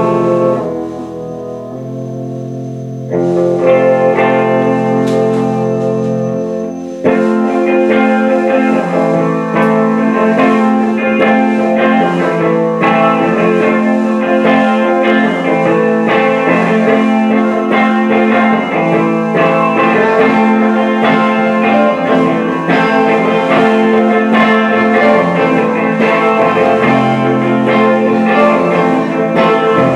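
Live rock band playing, loud: electric guitars through amplifiers with drums. A thinner, quieter guitar passage in the first few seconds builds at about three seconds, and the full band with drums comes in about seven seconds in.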